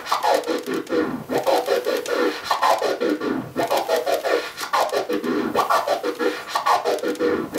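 Turntable scratching: a record sample is pushed forward and pulled back by hand and chopped by crossfader clicks into five sounds per cycle. This is a four-click orbit in its lo-hi click variation, repeated steadily at about one cycle a second.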